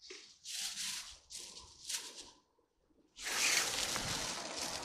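A plastic bag crinkling as it is handled: three short rustles, then a longer, louder crinkle starting about three seconds in.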